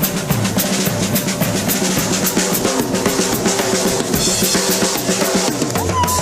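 Drum kit played in a fast, steady beat, the hits stopping shortly before the end.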